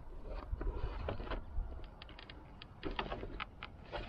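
A run of light plastic clicks and taps as a tinted Puig windscreen is worked into the clip-in brackets of a BMW R1200 GS Adventure, thickest between about two and three and a half seconds in, over a low rumble.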